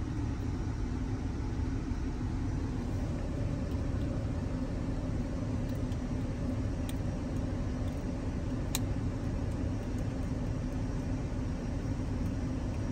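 Steady hum of an idling car heard from inside its cabin, with a couple of faint clicks about seven and nine seconds in.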